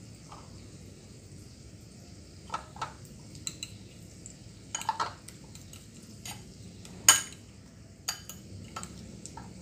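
Scattered clinks and taps of utensils against dishes, the loudest about seven seconds in, over a faint steady sizzle of a breaded Spam stick deep-frying in oil in a wok.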